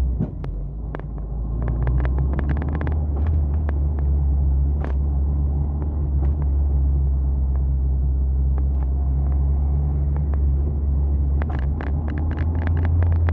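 Fiat Tempra 8-valve car being driven in low gear, its engine and running gear giving a steady low rumble, with bursts of light clicks and ticks about two seconds in and again near the end. It is a test drive of a repaired gearbox mount, and no loud clunk stands out.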